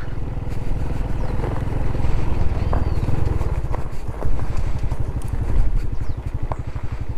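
Honda Pop 110i's small single-cylinder four-stroke engine running at low riding speed with an even, steady beat.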